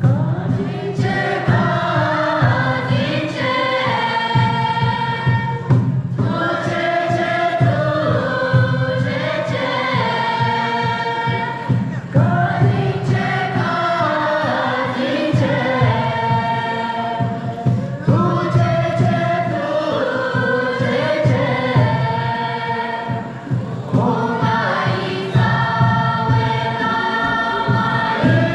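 A mixed group of young voices singing a Tibetan song together in unison, in long phrases with short breaths between them.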